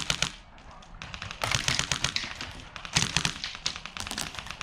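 Airsoft electric guns firing rapid full-auto bursts, a fast clatter of sharp clicks, with the heaviest bursts about a second and a half in and again around three seconds in.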